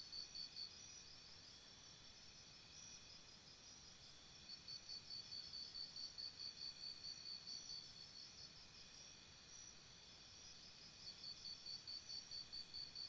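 Faint, high-pitched insect chirping in bouts of a few seconds, about four to five pulses a second, typical of a cricket.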